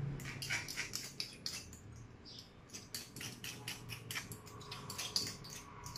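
Metal fork scraping and tapping against a small ceramic bowl as ginger-garlic paste is scooped out of it: a run of light, quick clicks and scrapes, a few a second.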